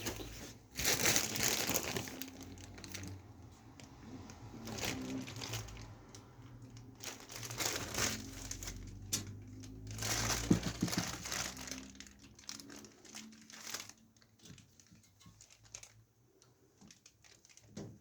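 Packaging crinkling and rustling as it is handled, in irregular bursts, loudest about a second in and again around ten seconds in, thinning to sparse small rustles and clicks after about fourteen seconds.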